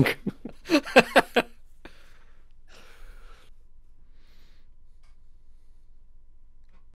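Men laughing in short bursts for about the first second and a half, then a couple of breathy exhales as the laughter dies down. After that only quiet room tone with a low hum.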